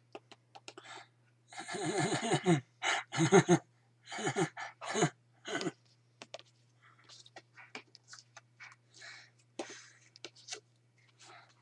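A man's voice making a few short, breathy, indistinct utterances in the first half, with small clicks scattered throughout over a steady low hum.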